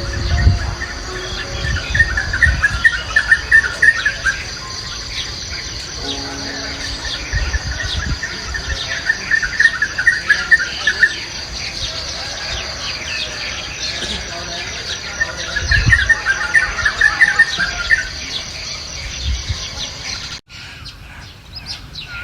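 Birds singing over steady insect chirring; a fast trilling bird phrase comes three times, about seven seconds apart. Occasional low thumps sound underneath.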